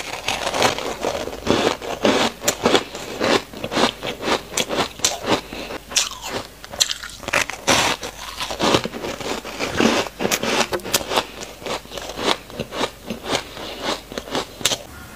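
Close-up crunching and chewing of powder-coated frozen ice: a steady, irregular run of sharp crackles and crunches as the ice is bitten and broken between the teeth.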